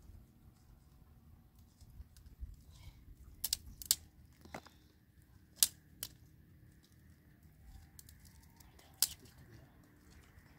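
Dry twigs and branches being snapped by hand for kindling: about six sharp cracks spread through the middle, the loudest about halfway through and one more near the end.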